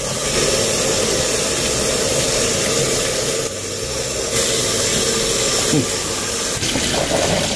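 Water pouring in a steady rush into a kitchen sink, over the freshly blanched komatsuna.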